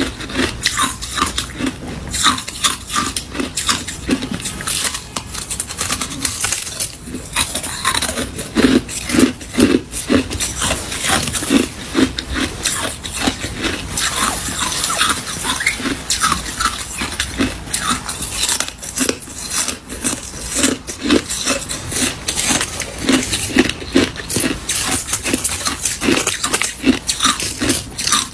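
A person biting and chewing hard ice close to the microphone: continuous crunching with many sharp cracks, several a second.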